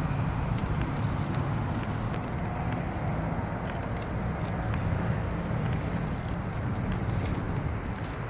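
Razor blade scraping and cutting away old urethane glue around the sunroof opening, a series of short crackly scrapes and clicks, over a steady low hum.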